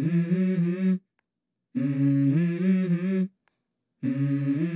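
Background music: a short low melodic phrase that stops and starts, three phrases of about a second to a second and a half each with silent gaps between.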